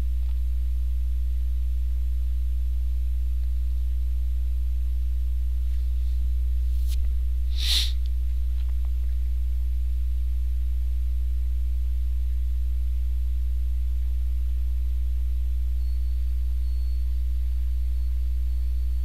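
Steady low electrical hum, as from mains hum in the recording chain, with a short faint hiss about eight seconds in.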